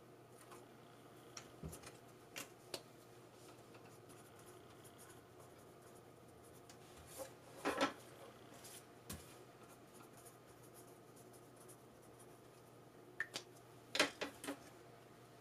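Herb cuttings being trimmed and handled: scattered small clicks and rustles over a faint room hum, with louder clusters about eight seconds in and near the end.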